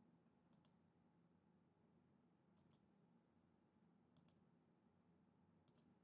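Faint computer mouse clicks against near silence: one click, then three quick pairs of clicks about a second and a half apart.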